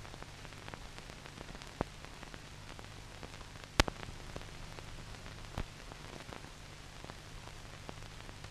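Faint hiss and low hum of an old film soundtrack, with scattered crackles and sharp pops, the loudest pop a little before the middle; no scene sound comes through.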